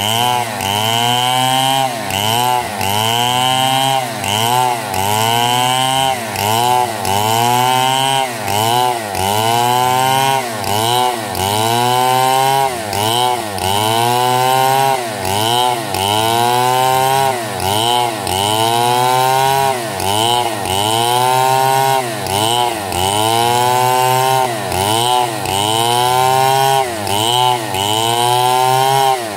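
Stihl chainsaw ripping lengthwise along a log, running at high revs, its engine pitch and loudness rising and falling in a regular cycle about once a second as the bar works through the cut.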